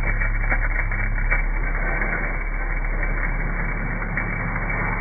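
A machine running steadily: a low hum with scattered crackling clicks, the crackles thickest in the first second or so.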